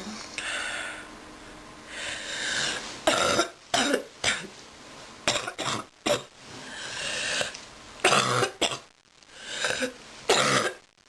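A sick person coughing in several short fits of a few hacks each, with long noisy breaths drawn in between the fits.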